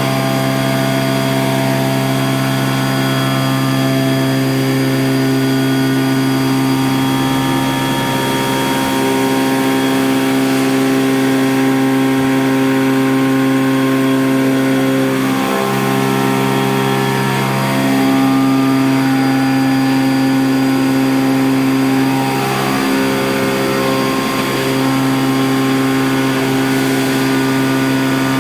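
Okuma Genos M560-V CNC vertical machining centre milling: the spindle and cutter give a steady, loud whine of several held tones. The pitch steps to new levels a few times, in the second half, as the cut or spindle speed changes.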